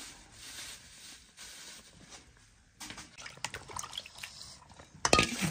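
A plastic bag rustling, then hands splashing and turning cut pieces of fish in a plastic basin of water, with dripping and small splashes that get louder near the end.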